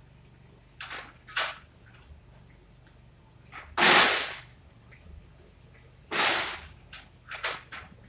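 A series of sharp bangs at irregular intervals, the loudest about four seconds in, with a cluster of quicker, smaller ones near the end.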